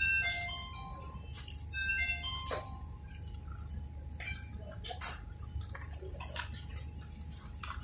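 Background music of short, bright chiming notes in quick stepped phrases, loudest at the start and again about two seconds in, followed by a few faint clicks.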